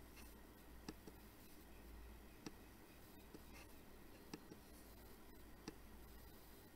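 Computer mouse clicking: about five single, sharp clicks spaced one to two seconds apart, over a faint low hum.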